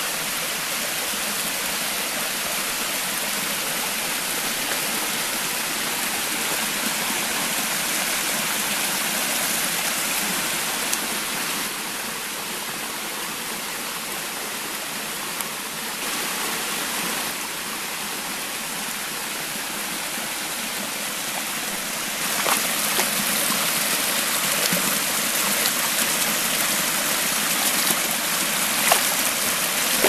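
Small waterfall and shallow stream, water running steadily over rock ledges. It grows louder about two-thirds of the way through, with a few brief clicks near the end.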